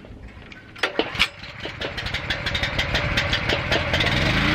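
Pressure washer's engine starting: two or three sharp knocks about a second in, then firing strokes that quicken and grow louder until it catches and rises into a steady run near the end.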